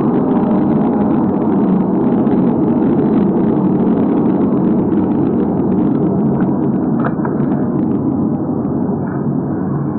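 Loud, steady low droning rumble that eases off slightly near the end.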